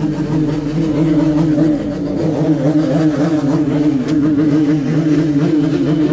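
An engine held at high, steady revs, its pitch wavering slightly as the throttle is held open.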